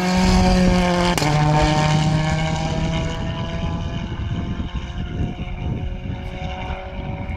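Toyota Corolla WRC rally car's turbocharged four-cylinder engine at high revs passing at speed, with a sharp crack about a second in as it shifts up and the pitch drops. The engine note then carries on more steadily and grows quieter as the car pulls away.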